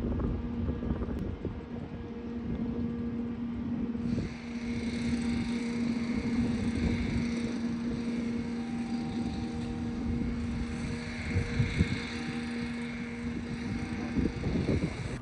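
A vehicle's motor running with a steady hum and rumbling wind on the microphone. About four seconds in, a higher, brighter layer of sound joins and keeps on.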